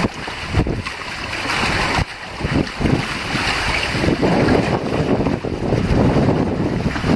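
Wind buffeting the microphone over the rush and splash of water along a small sailboat's hull as it sails, growing louder about three seconds in.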